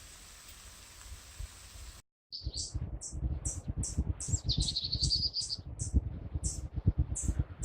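Songbird singing: a rapid run of short, high chirps with a buzzy trill in the middle, over an irregular low rumble. The song starts after a sudden cut about two seconds in.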